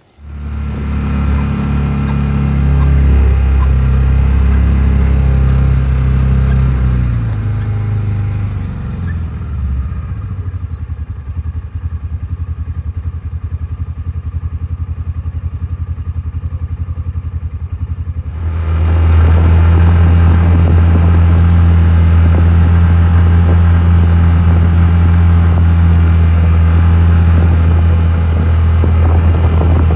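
Engine of the vehicle towing a wheeled roping dummy, running close to the microphone. It drops in pitch and eases off about a third of the way in, then picks up to a louder, steady run about two-thirds of the way through.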